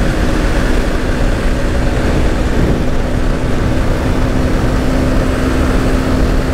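Yamaha Fazer 150's single-cylinder four-stroke engine running at a steady cruise, its even drone buried in heavy wind rush on the microphone.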